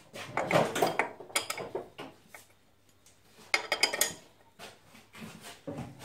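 Metal hand tools clinking and rattling in a few short bursts, the loudest about half a second in and again around three and a half seconds in, as spanners and sockets are handled and fitted to a motorcycle's rear axle nut.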